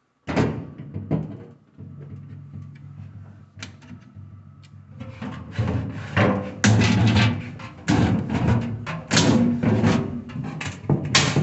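Music with drums playing, with sharp knocks over it, denser and louder from about halfway through.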